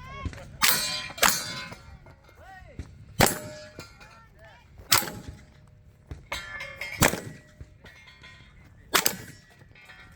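Mossberg 940 JM Pro 12-gauge semi-automatic shotgun fired six times at an uneven pace, two in quick succession then one about every two seconds, with steel targets ringing after the hits.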